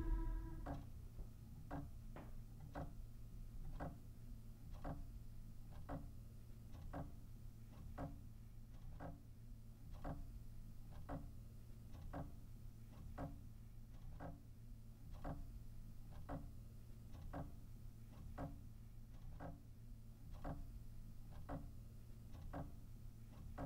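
A clock ticking steadily, about two ticks a second, over a faint low hum. A tail of music dies away at the very start.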